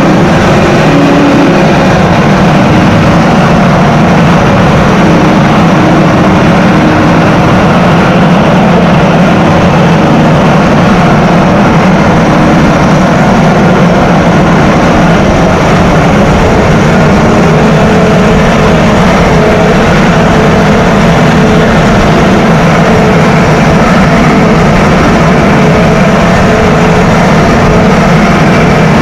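Tractor engine running steadily under load while ploughing, with a slight shift in its note about halfway through.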